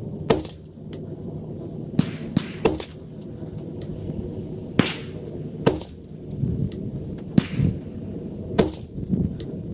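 A string of about eight sharp rifle reports of varying loudness, roughly one every second, from an AR-15 with a 12.5-inch Criterion Core barrel firing .223 match ammunition. The footage is sped up three times, which packs the shots close together.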